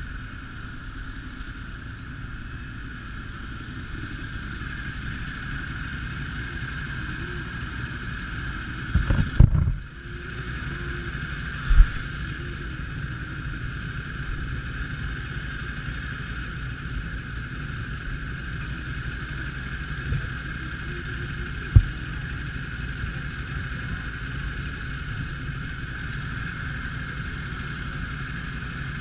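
Motorcycle engines running and idling in traffic, a steady hum with a few sharp thumps about nine, twelve and twenty-two seconds in.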